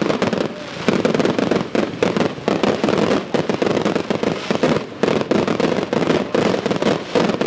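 Fireworks display at full intensity: a rapid, near-continuous run of overlapping bangs and crackles from bursting aerial shells, with hardly a pause.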